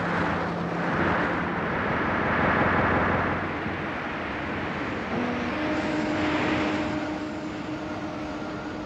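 Heavy surf breaking on rocks: a rushing wash of waves that swells and eases several times. About five seconds in, low held music notes fade in beneath it.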